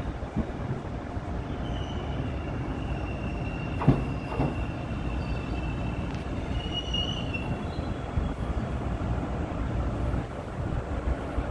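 Taiwan Railway EMU500-series electric multiple unit pulling into a station, its running gear giving a steady low rumble with a high, thin squeal that holds for several seconds as it slows. A single sharp clunk sounds about four seconds in.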